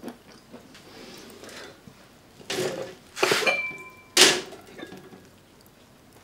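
Crockery and a pot lid being handled: three clinks and knocks between about two and a half and four and a half seconds in, two of them leaving a short ringing tone, with a few light taps before them.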